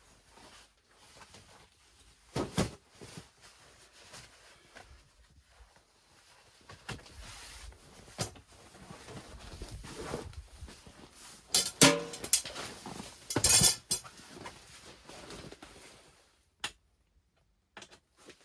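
Metal cookware and gear being handled: irregular knocks and clinks over rustling. The loudest are a clattering cluster about twelve seconds in, followed by a brief rattle.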